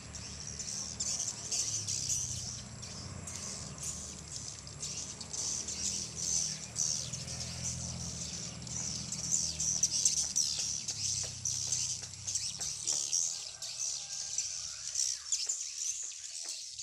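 A swarm of swiftlets chirping and twittering, a dense, continuous high-pitched chatter.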